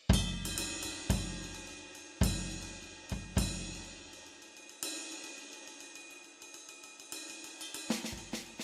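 Alesis Crimson II electronic drum kit being played: loud cymbal-and-kick hits about once a second, each ringing out, with lighter strokes between, then a quick fill of rapid strikes near the end.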